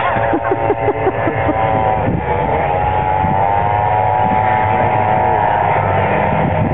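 A pack of vintage two-stroke snowmobiles racing across the ice, their engines giving a steady, overlapping whine. The pitch steps up slightly about two seconds in.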